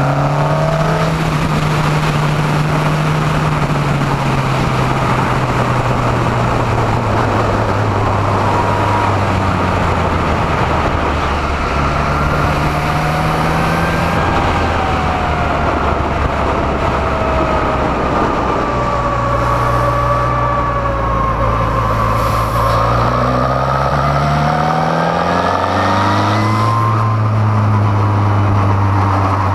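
Onboard sound of a Formula Renault 2.0 race car's four-cylinder engine under hard driving. Its pitch keeps rising and falling with speed, dropping sharply about 25 seconds in and then climbing again.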